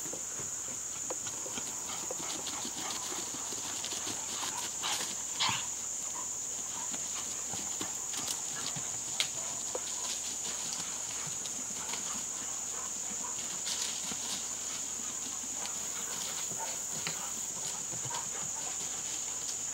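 A steady high-pitched chorus of crickets, with scattered soft thumps and rustles of two dogs galloping and wrestling on grass.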